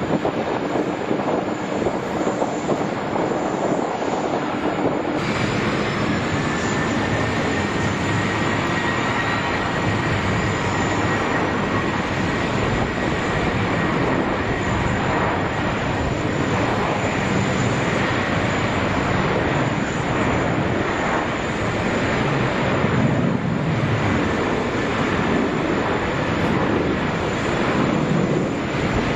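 Jet airliner engines running, a loud, steady rushing noise with a thin high whine above it from about five seconds in.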